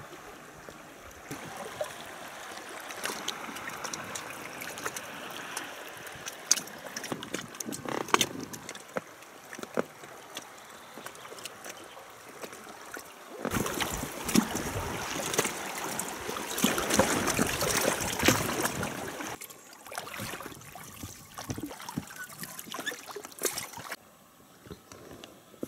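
River water splashing and lapping around a drifting boat, with scattered small knocks and clicks. The water sound grows louder for several seconds just past the middle, then eases off.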